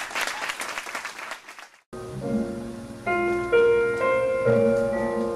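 Applause that fades away over the first second or two and cuts off. Instrumental music with held notes starts about two seconds in.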